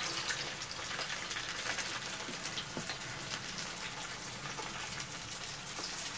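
Shrimp-and-rice rolls deep-frying in hot oil in a wok: a steady sizzle with scattered crackles and pops.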